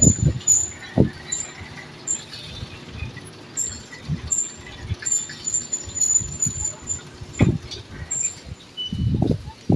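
Electric gate squeaking and knocking: short, irregular high squeaks come one after another, with a few low thumps.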